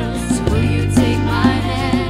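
Upbeat music with a regular beat about twice a second over a sustained bass line, a gliding melody on top.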